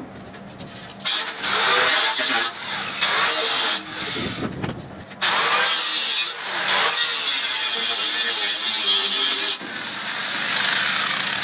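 A tool working metal in repeated bursts, the longest lasting about four seconds, with short pauses between them.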